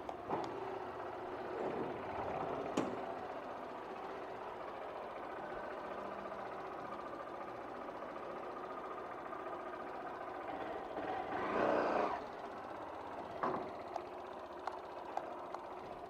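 Motorcycle engine running steadily at idle, with a few sharp clicks and a brief louder rushing swell about three-quarters of the way through.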